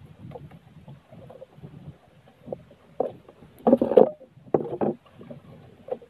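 Small fishing boat at sea: irregular knocks and water slapping against the hull as it rocks. Two louder rustling, knocking bursts come a little past halfway as the line is hauled in by hand.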